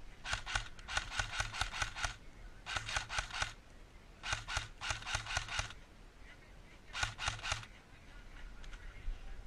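Airsoft gun firing five bursts of rapid shots, about seven a second, each shot a sharp click with a low thump under it.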